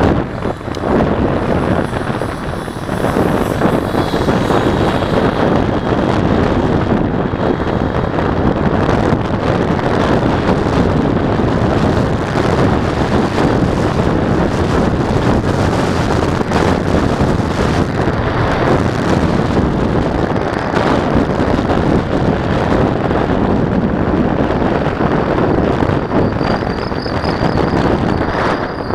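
Steady, loud rush of wind buffeting the microphone of a Mobius action camera mounted on a moving bicycle.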